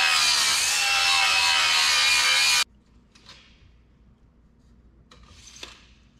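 Cordless angle grinder grinding a steel bar, a loud, steady whine that wavers slightly under load and cuts off suddenly about two and a half seconds in. After that, only faint, brief scratching as a steel bar is marked out on a table.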